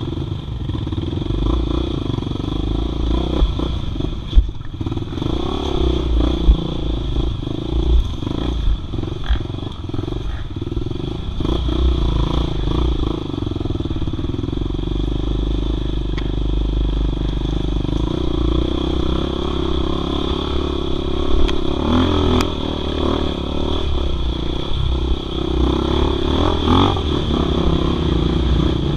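Husqvarna enduro dirt bike's engine running at low, varying revs on a muddy trail climb, heard on board. Scattered knocks and clatter come from the bike jolting over ruts.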